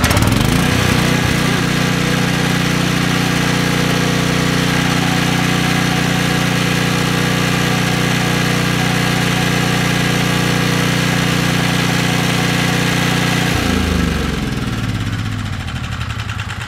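Briggs & Stratton Storm Responder portable generator engine running steadily on propane through a tri-fuel conversion kit, having fired right up with no choke. About 13 seconds in it slows and winds down, its pitch falling.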